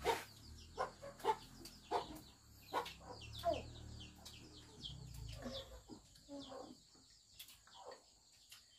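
Chickens clucking and chicks peeping in short, quick, falling calls, mixed with sharp clicks of chopsticks against porcelain rice bowls. The sharp sounds are loudest and most frequent in the first four seconds, then thin out.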